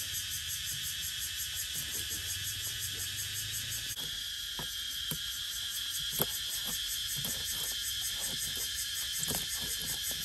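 Knife knocking on a wooden chopping block as small fish are cut into pieces, in short irregular strokes starting about four seconds in. A steady chorus of insects chirps underneath.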